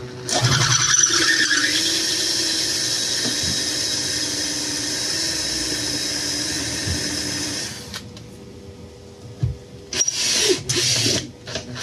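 Power drill with an acrylic drill bit boring a hole in plastic, running as a steady high whine for about seven and a half seconds. A couple of shorter drilling bursts follow near the end.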